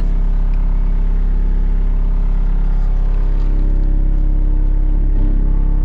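Skid steer loader's engine running steadily with a deep, even note.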